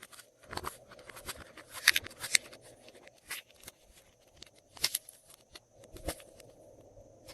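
Glossy slime being mixed and pressed by hand, giving irregular sticky clicks and crackles, a few of them sharper pops.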